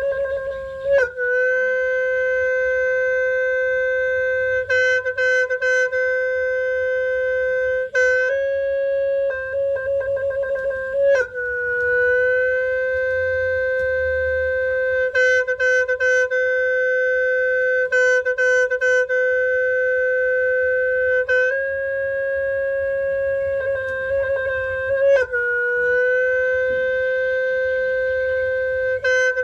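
Sneng, the traditional Khmer horn, playing a long held note with quick trilled ornaments several times over, settling a step lower now and then.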